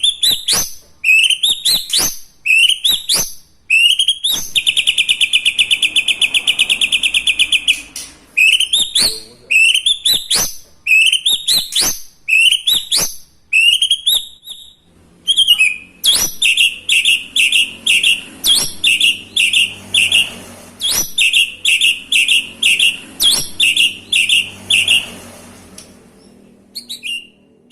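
White-rumped shama (murai batu) singing loudly, its song filled with mimicked calls of other birds. It gives short rising whistled notes about once a second, breaks into a long fast trill about four seconds in, and in the second half gives quick runs of repeated chirping notes.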